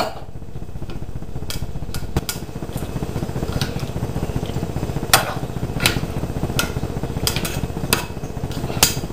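A spatula stirring chunks of raw chicken, potatoes and carrots in a black saucepan, knocking against the pot every second or so, over a steady low rumble.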